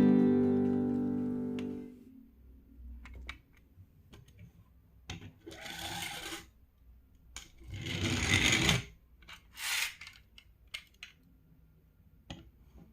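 The last strummed chord of acoustic guitar music rings out and fades over about two seconds. After it come a few faint rustling noises and small clicks.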